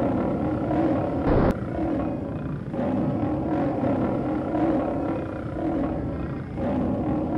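Monster roar sound effect: a deep, continuous creature roar with a short louder blast about a second and a half in.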